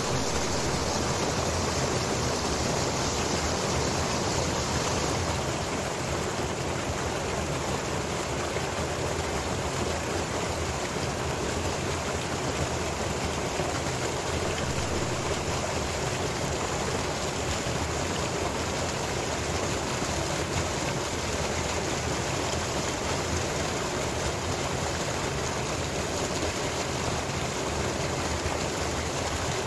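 Stream water rushing and splashing over rocks and ice, a steady, unbroken rush.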